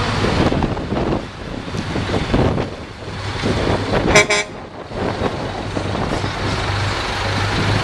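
FTF truck's diesel engine running as the truck pulls away slowly, with one short air-horn toot about four seconds in.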